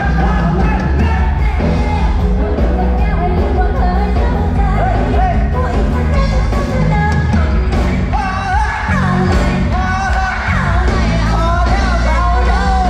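Live pop-rock band playing loud through a PA: singing over electric guitars and drums.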